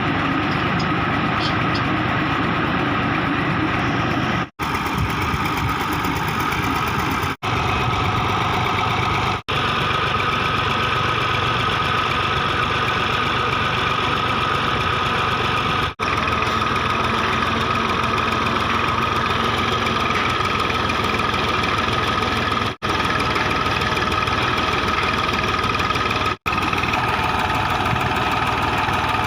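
Engine of a tubewell boring rig running steadily, with a steady mechanical drone. The sound breaks off for an instant six times where clips are joined.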